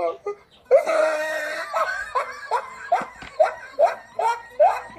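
A child laughing: a drawn-out voiced sound about a second in, then a run of short rising laughs, about two to three a second.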